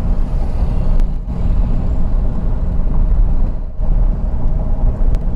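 Car driving on the highway, heard from inside the cabin: a steady low rumble of road and engine noise.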